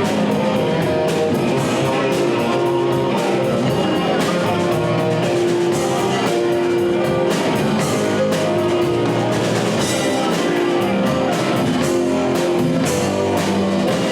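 Rock band playing: guitar over a steadily beaten drum kit, with no vocals.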